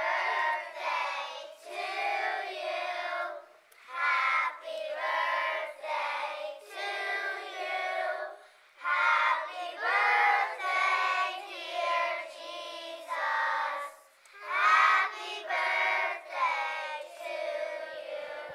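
A group of young children singing together in unison, in phrases a few seconds long with short breaks between them. The singing fades out just before the end.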